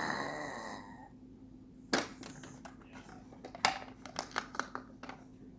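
A young child's cry trails off within the first second, followed by scattered light clicks and taps, the sharpest about two seconds in and again past the middle.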